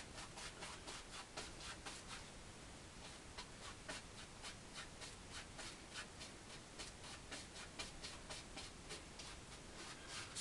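Paintbrush scrubbing oil paint onto a canvas coated in wet white, in crisscross strokes: a soft, rhythmic scratching of about three strokes a second.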